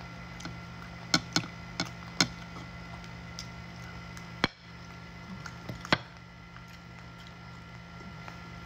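Crisp lechon (roast pig) skin cracking and crunching in a handful of sharp snaps as it is torn by hand and bitten, four close together in the first couple of seconds and two more later, over a steady low hum.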